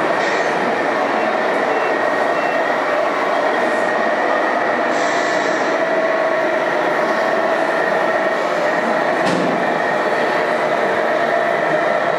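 Radio-controlled model trucks running: a steady mechanical running noise with a held whine from electric motors and gearboxes, and one sharp click about nine seconds in.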